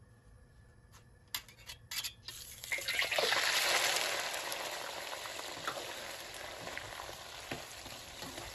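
Peeled shrimp sizzling in hot oil in a wok, flash-fried (passed through oil) before the sauce goes on. A few light clicks come first; the sizzle starts about two seconds in, is loudest just after, and slowly dies down.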